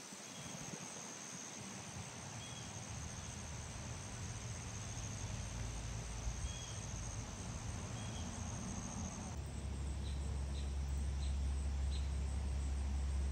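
Steady, high-pitched insect trill, typical of crickets, with a few short faint chirps over it. About three-quarters of the way through it stops abruptly, giving way to a steady low rumble and four short chirps.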